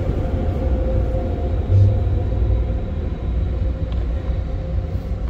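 Low, steady road rumble of a car on the move, with a faint steady hum above it and a brief louder low surge about two seconds in.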